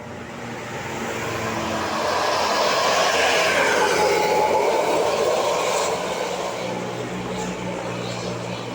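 A bus passing close by, its engine and tyre noise swelling to a peak about three to five seconds in and then fading away.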